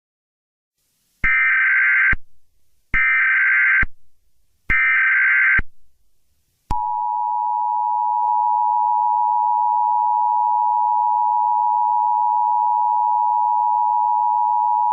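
Emergency Alert System tones: three short bursts of SAME digital header data, each just under a second long with about a second between them, then the two-tone EAS attention signal held steady for about eight seconds. Together they mark the start of an emergency alert broadcast.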